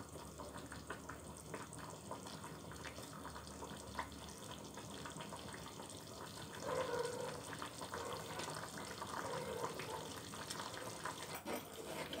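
Curry boiling in an aluminium pot, its watery gravy bubbling steadily. A few clicks near the end as a ladle stirs it.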